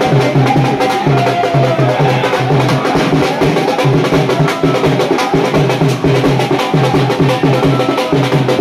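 Rapid, steady drumbeat with a dense crowd cheering and shouting over it.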